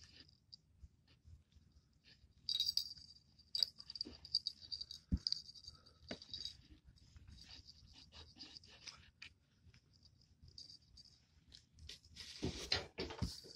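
A small brass jingle bell on a cat's wand toy jingles in quick, irregular shakes as the cat paws at it. There is a brief rustle near the end.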